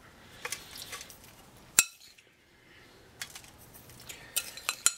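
A metal spoon clinking and scraping against a mixing bowl and a metal baking pan as crumble topping is spooned onto apples, with one sharp clink about two seconds in and a run of quicker clicks near the end.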